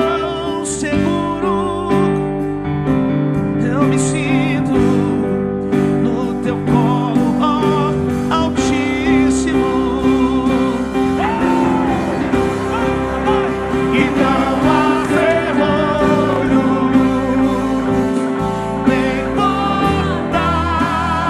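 Live worship music: sustained keyboard chords with a singing voice wavering over them.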